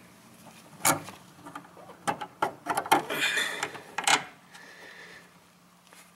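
Light clicks, taps and rustling from hand work around a brake master cylinder and the rags packed beneath it: one tap about a second in, a quick cluster of clicks between two and three seconds, a brief rustle, and a last knock around four seconds.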